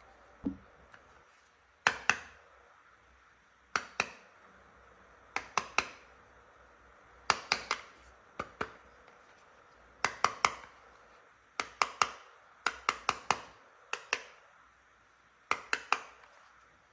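Sharp clicks and taps of hard plastic toy pieces being handled, in quick groups of two to four about a fifth of a second apart, repeating every second or two, after a single dull knock near the start.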